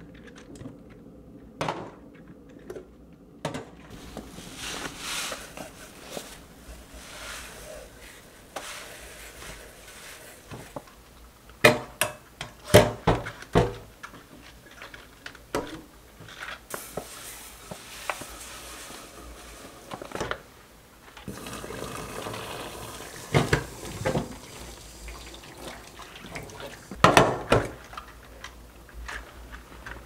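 Sink-cleaning handling sounds: a plastic drain cover and strainer basket clicking and knocking against a stainless-steel sink drain, with a few sharp knocks around the middle and near the end, over water sounds in the sink.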